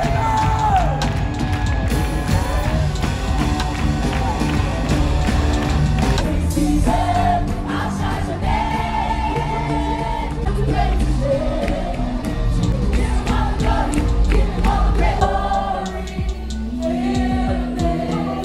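Live gospel worship music played loud through a hall's sound system, with a heavy bass and a crowd of worshippers singing along.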